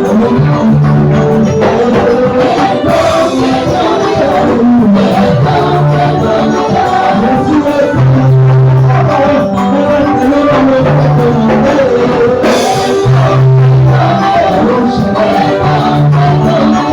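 Church worship music: singing over instruments with a bass line holding long notes, loud and steady.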